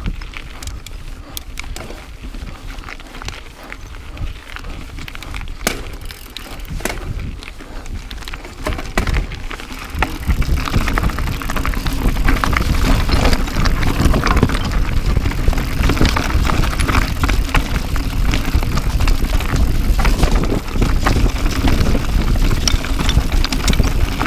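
YT Capra AL 29er enduro mountain bike riding down a loose, rocky trail: tyres crunching over stones, with scattered clicks and rattles from the bike and wind noise on the camera's microphone. About ten seconds in it grows louder and denser, with a heavy low rumble of wind as the bike speeds up.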